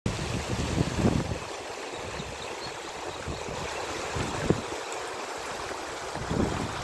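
Lake water flowing and lapping as a steady rush, with gusts of wind buffeting the microphone about a second in, briefly halfway through, and again near the end.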